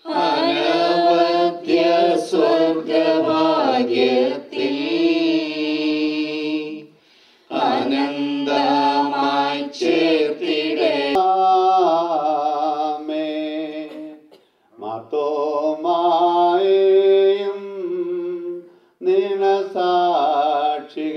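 Small mixed choir of men's and women's voices singing a Malayalam hymn for the dead into microphones, in held lines with three brief pauses for breath.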